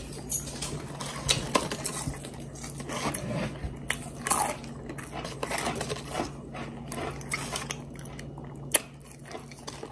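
People eating cheeseburgers and crispy double-fried hand-cut fries: irregular biting, crunching and chewing, with one sharp click near the end and a faint steady hum underneath.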